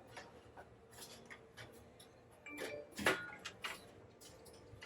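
Scattered light clicks and taps of hands handling wiring and parts, with a louder cluster of knocks about three seconds in.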